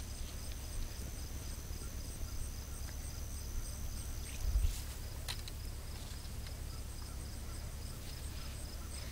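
Insects chirping in a steady, high, pulsing rhythm over a low rumble of wind on the microphone, with a single thump about four and a half seconds in.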